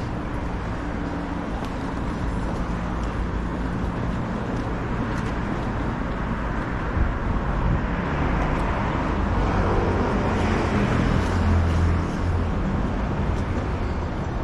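Street traffic: vehicle engines running and tyres on the road as a steady hum, swelling as a vehicle passes about eight to twelve seconds in.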